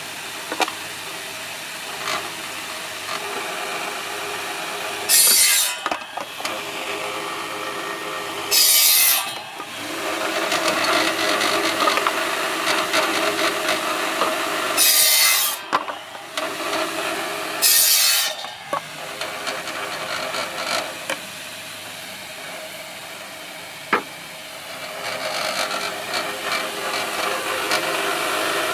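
Bamboo satay-skewer making machine running steadily, with four short, loud bursts of noise as bamboo is worked through it.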